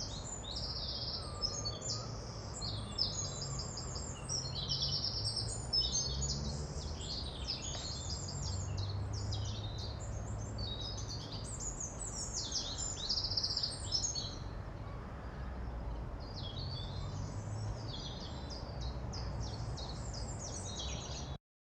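Many small birds chirping and singing at once, a dense chorus of quick trills and calls, over a steady low background rumble. It all cuts off abruptly near the end.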